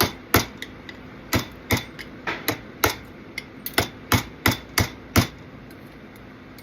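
Repeated sharp knocks, about fifteen in five seconds at an uneven pace, stopping a second or so before the end: powder-coated rivets being knocked out of their holder, where the cured powder around their heads has stuck them fast.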